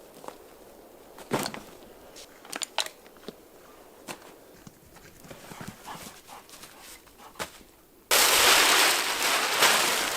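Scattered light snaps and taps, like steps on twigs and forest litter. About eight seconds in they are cut off by a sudden, loud, steady hiss of rain.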